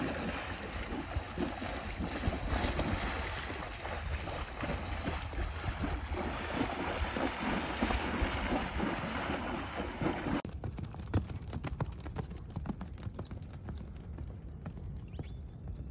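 A horse wading through a shallow pond, its legs splashing and churning the water. About ten seconds in, the sound cuts to a horse's hooves galloping over loose arena dirt, a quick run of hoofbeats.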